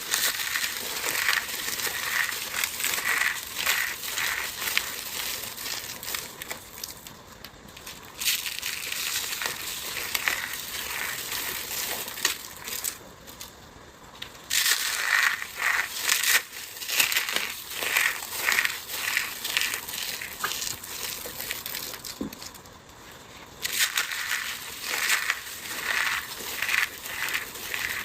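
Dry, crumbly material being crushed up close, a dense crackling and crunching that comes in several runs with short pauses about 7, 13 and 23 seconds in.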